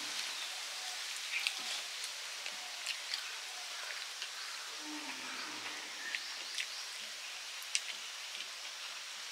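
Close-up eating sounds of rice eaten by hand: frequent short wet smacks and clicks from chewing and from fingers mixing rice on the plates, over a steady hiss.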